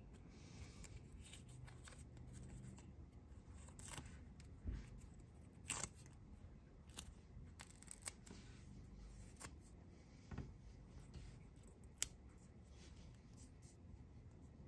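Faint crinkling and rustling of a children's adhesive bandage as its backing is peeled off and it is pressed onto the skin, with scattered small sharp clicks, the loudest one near the end.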